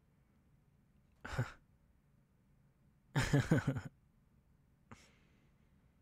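A man laughing softly into a close microphone: a short breathy chuckle, then a longer laugh of several quick pulses about two seconds later. A single sharp click follows.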